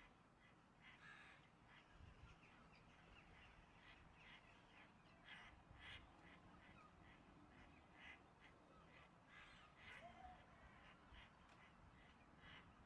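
Faint, harsh jackdaw calls repeated one after another, roughly one or two a second: the distress and alarm calls of a jackdaw pinned down by a hawk.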